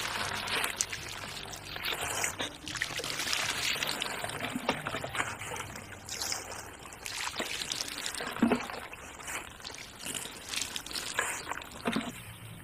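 Water poured from a bowl over a crocodile carcass, splashing and trickling off the scales in uneven bursts.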